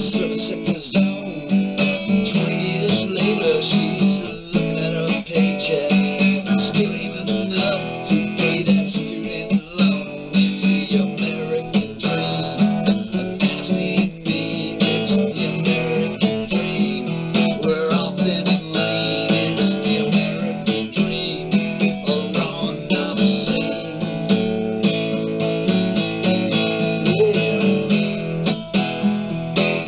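Guitar music, the strings strummed and picked in a continuous run of notes.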